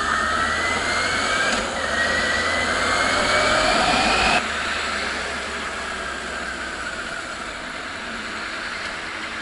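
Yamaha FZS600 Fazer's inline-four engine accelerating, its note rising, with an upshift about one and a half seconds in and the pitch climbing again. About four and a half seconds in the throttle is shut and the engine note drops away, leaving steady wind and road noise as the bike rolls on.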